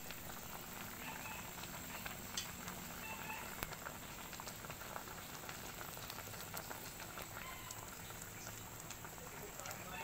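Pot of shrimp sinigang soup at a rolling boil: a steady bubbling with many small irregular pops.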